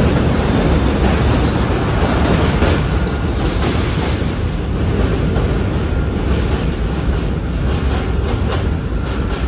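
New York City subway train running on the steel track of a bridge deck: a heavy, loud rumble with wheels clicking over rail joints, slowly fading as the train pulls away.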